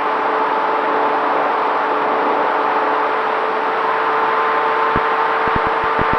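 Electric motor and propeller of a Dynam T-28 Trojan RC plane, heard from the plane's on-board camera: a steady whine over rushing airflow noise. A few short low thuds come near the end.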